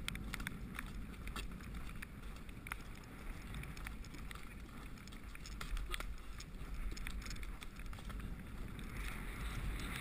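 Wind rumbling across a head-mounted action camera's microphone on a horse cantering cross-country, with scattered clicks and knocks from the horse's stride and tack. There is a heavier low thump about six seconds in, as the horse jumps a fence.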